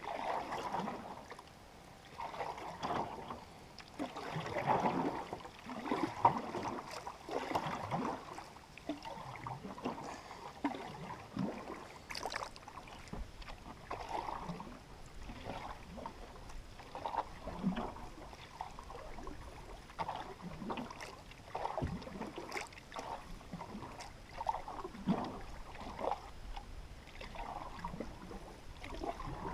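Water gurgling and splashing unevenly along the hull of a canoe being paddled across calm water.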